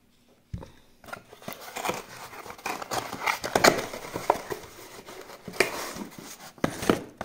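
A small cardboard box being handled and opened by hand: rustling, scraping and crinkling of cardboard and packaging, with a thump about half a second in.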